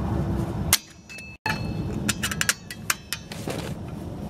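Needle-nose pliers and a steel retention spring clicking and clinking against a parking brake shoe assembly as the spring is fitted, a scattered run of sharp metallic ticks with a quick cluster in the middle.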